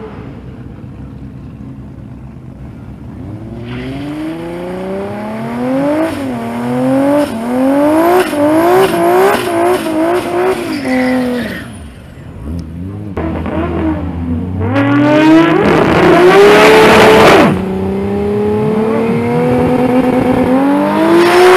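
Toyota 1JZ inline-six in an early Corolla doing a drag-strip burnout. The engine runs low at first, then from about four seconds in is revved hard in a string of quick surges with the tyres spinning. After a short dip it revs again with a loud tyre squeal, then settles into slowly climbing revs as the car creeps forward.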